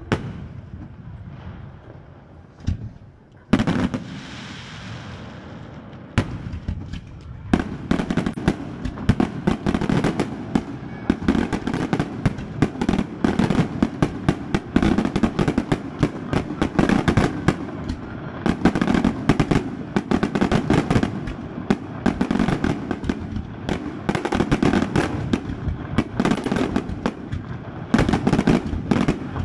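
Fireworks display: a few separate shell bursts for the first several seconds, then from about seven seconds in a dense, continuous barrage of rapid bangs and crackles.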